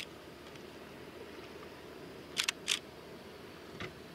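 Camera shutter clicking: two sharp clicks about a third of a second apart some two and a half seconds in, then a fainter click near the end, over a steady low hum.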